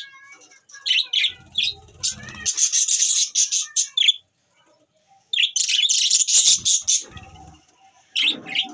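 Pet budgerigars chirping and chattering in quick, high-pitched bursts, with a short pause about halfway through.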